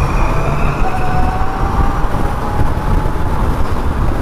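Zero FXS electric motorcycle's motor whining as it accelerates, the whine rising slowly in pitch, over heavy wind rush on the microphone.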